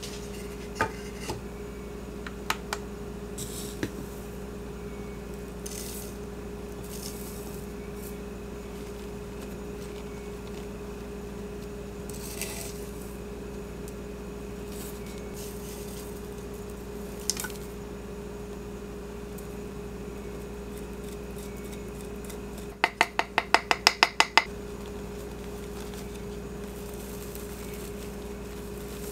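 Loose-leaf tea being scooped with a wooden spoon from a glass jar onto a wooden tray: scattered light clicks and taps, then, near the end, a quick run of about ten sharp taps, the loudest sound here. A low steady hum runs underneath.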